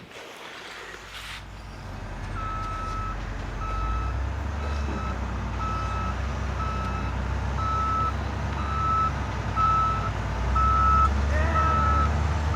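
Electronic sound effects from a toy construction vehicle: a low engine rumble that grows louder, with a steady reversing beep repeating about one and a half times a second from about two seconds in.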